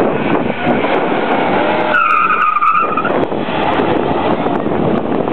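Ford Mustang running hard through an autocross cone course, its engine heard from across the lot, with the tyres squealing for about a second about two seconds in.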